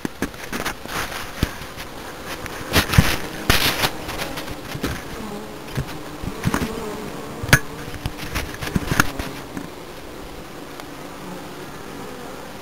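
Honeybees buzzing at a hive entrance, single bees flying close past the microphone with wavering buzzes. A run of sharp knocks and short bursts fills roughly the first ten seconds, then the sound settles into a steadier buzz.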